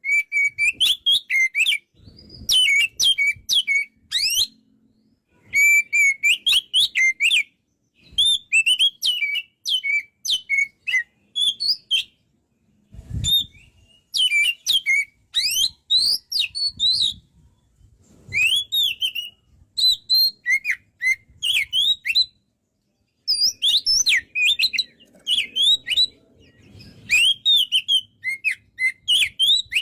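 Oriental magpie-robin (kacer) in full song: loud phrases of rapid, varied whistles and chirps sliding up and down, each a second or two long, separated by short pauses.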